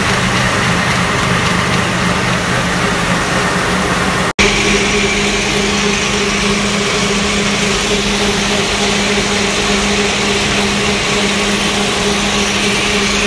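Chicken manure fertilizer granulator machinery running: a loud, steady mechanical din with a constant hum. There is a brief break about four seconds in, after which it carries on unchanged.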